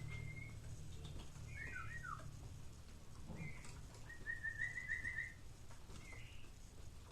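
A kept songbird chirping and whistling in short phrases, with a rapid trill of repeated notes about four seconds in, over a low steady hum.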